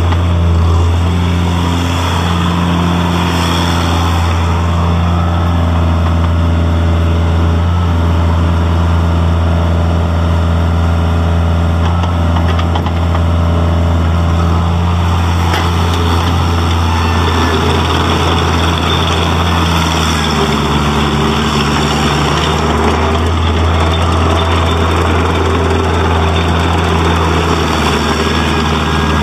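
Bobcat 430 mini excavator's 41.8 HP Kubota diesel engine running steadily with a deep drone while the machine tracks and swings, its hydraulics working; the engine note shifts slightly about two-thirds of the way through.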